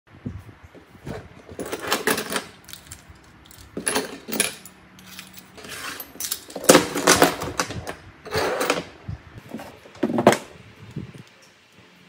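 Small metal and plastic repair tools (tweezers, spudgers, a precision screwdriver) clinking and rattling as they are gathered up by hand and set down on a wooden desk, in about five short bursts.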